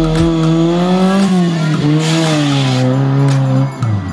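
Off-road 4x4 buggy's engine revving hard, its pitch rising and falling as the throttle is worked over rough dirt. A hiss of wheels spinning in loose dirt comes about two seconds in, and the engine drops off briefly near the end.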